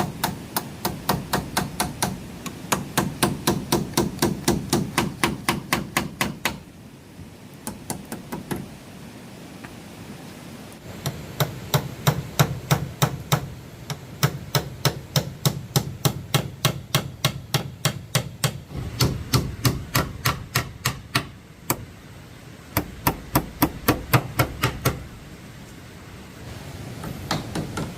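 Rapid, even hammer strikes, about five a second, in long runs broken by a few short pauses, over a steady background hiss.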